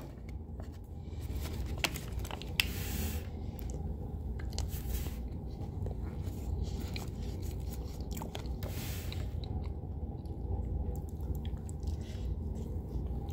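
Quiet eating sounds: a plastic spoon digging into layered cake in a plastic clamshell container, then chewing, with a few faint clicks and a low steady hum underneath.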